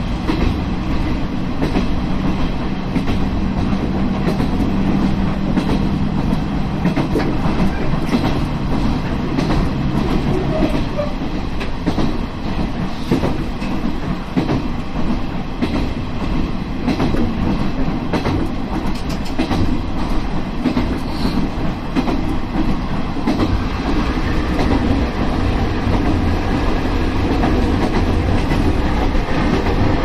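KiHa 32 diesel railcar running along the track: a steady diesel drone, its engine note clearest for the first seven seconds or so, under the irregular clack of the wheels over rail joints.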